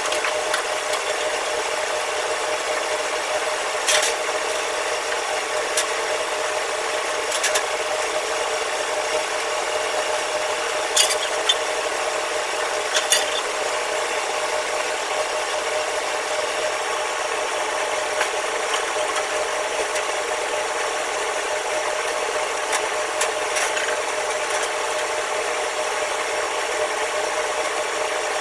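Steady mechanical hum of kitchen equipment with a constant tone. It is broken by a few sharp clinks of stainless-steel bowls and utensils being handled.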